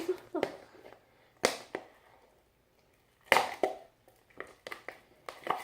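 A spoon knocking and scraping against a pot while stirring slime, making irregular sharp knocks with a quiet pause near the middle.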